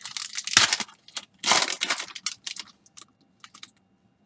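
A foil trading-card pack being torn open and its wrapper crinkled, loudest about half a second in and again around a second and a half in, followed by a few faint rustles and clicks as the cards are handled.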